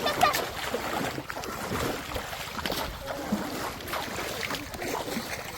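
Shallow river water sloshing and splashing irregularly as someone wades and works in it.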